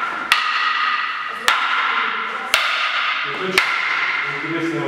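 A short wooden tolete stick striking a partner's longer stick four times, about once a second. Each strike is a sharp crack followed by a fading ring.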